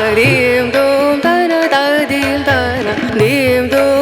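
Background music: a solo voice singing a gliding, ornamented melody on rhythmic syllables over hand-drum percussion.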